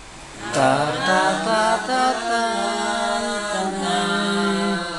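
A man's voice singing unaccompanied in long held notes, starting about half a second in and stepping from one pitch to the next.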